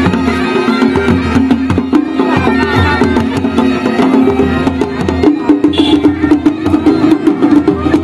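A Kumaoni chholiya baja band playing: dhol and damau drums beat a fast, dense rhythm under a steady drone, typical of the masakbeen bagpipe that plays with this band.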